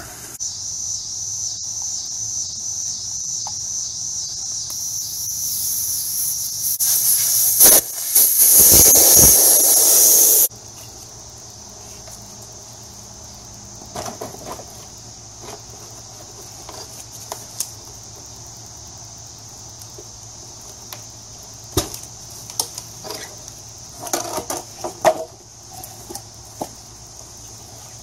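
Air hissing out of a motorcycle tyre through the open valve stem after the Schrader valve core is removed, growing louder and stopping abruptly about ten seconds in. After it come scattered light knocks of wooden blocks and a 2x4 lever being set against the deflated tyre to break the bead.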